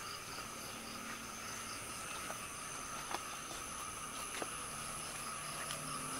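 A chorus of night insects, crickets among them, chirring steadily at several high pitches, with a few faint clicks.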